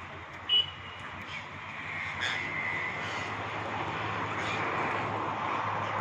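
A flock of rose-ringed parakeets calling over a steady rushing background noise, with one short shrill call about half a second in.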